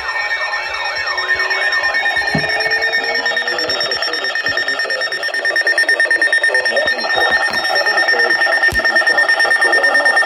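Emergency alert tones for a severe thunderstorm warning, several at once: a warbling siren-like tone that fades out in the first couple of seconds, a steady high tone, and a rapid pulsing alert tone that gets louder about halfway through.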